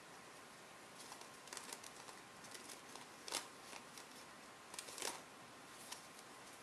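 Folded paper units of a modular origami slinky rustling and clicking against each other as it is flexed in the hands: a faint run of scattered soft rustles with a few sharper paper snaps, the loudest about three seconds in and another pair around five seconds in.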